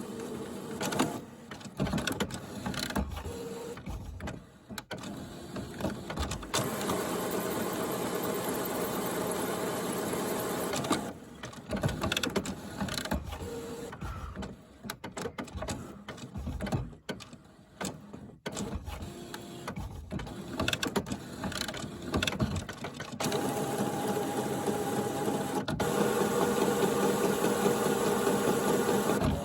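HP Photosmart Plus inkjet printer's mechanism running, with motor whirs broken by irregular clicks and knocks, sounds its owner finds odd. A steady whir runs about a third of the way in, clicking and knocking fills the middle, and a longer, louder whir comes near the end.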